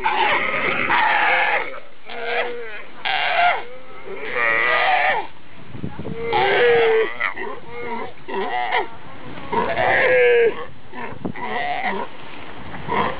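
Galapagos sea lions calling: a string of about ten loud calls, each under a second long with short gaps between, several wavering in pitch.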